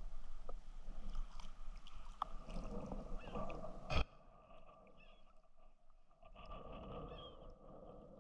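Choppy sea water slapping and splashing at the sea surface, with a sharp splash about four seconds in, then quieter water and faint gull calls.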